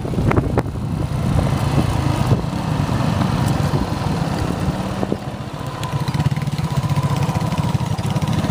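Motorcycle engine running steadily while riding along a dirt road, with a few knocks in the first second.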